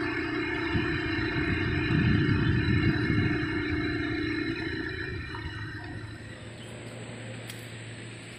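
A vehicle engine running steadily with a low rumble, loudest about two to three seconds in, then fading away over the last few seconds.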